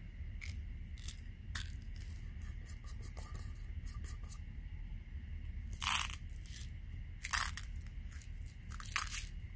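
A small metal tin of lead air-rifle pellets being handled and prised open: light clicks and scrapes, then the pellets rattle in the tin in three short bursts in the second half.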